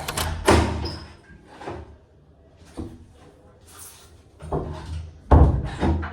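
A series of about five dull knocks and thumps, like doors or objects being handled and bumped, the loudest a little past five seconds in.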